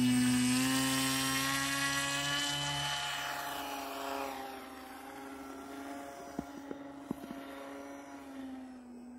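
Electric motor and propeller of a homebuilt pusher RC foamboard plane in flight: a 2212 1400kv brushless motor giving a steady, high propeller whine that fades as the plane flies away.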